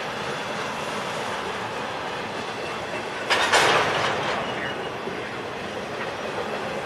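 Freight train cars rolling by on the rails with a steady rumble and clatter of wheels, broken a little over three seconds in by one loud metallic clank that rings for about a second.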